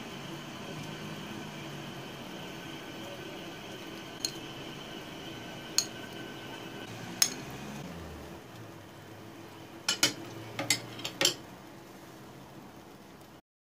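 A metal spoon clinking sharply against a small plate and a stainless steel pot: three single clinks, then a quick run of five or six near the end, over a steady faint hum.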